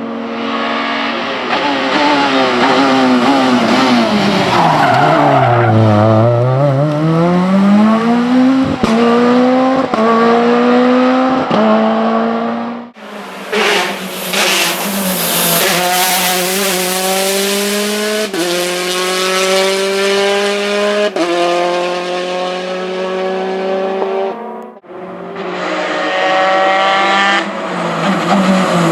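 Rally cars on a special stage, heard one after another. The first slows with its engine note falling, then accelerates hard through several gear changes. The next passes at high revs with a loud hiss and quick upshifts, and a third slows with its note dropping near the end.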